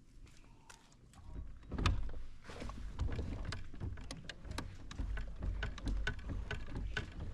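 Pedal kayak's fin drive being pedaled: a steady run of sharp clicks and knocks, about two or three a second, over a low rumble of water against the hull.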